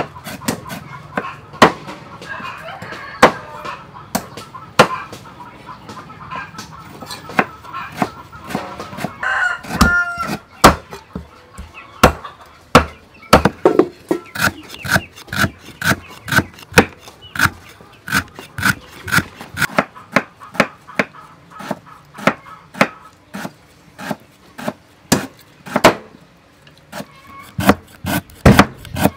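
Cleaver chopping lemongrass on a thick wooden chopping board: sharp knocks, irregular and spaced out at first, then a fast steady run of about two to three chops a second from about halfway through.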